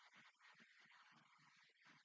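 Near silence.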